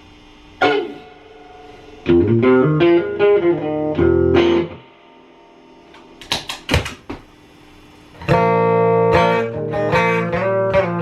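Electric guitar being played: a quick run of single notes about two seconds in, a few string taps, then ringing chords from about eight seconds on.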